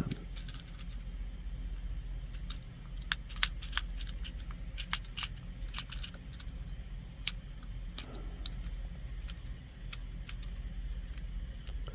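Fidget cube being worked by hand: irregular sharp clicks, some in quick clusters, most of them in the first eight seconds or so.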